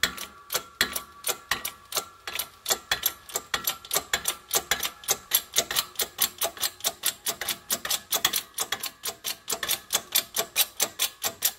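Rapid, even metallic clicks, about four or five a second, as a socket and extension drive an end cap bearing out of the Eaton M45 supercharger's housing.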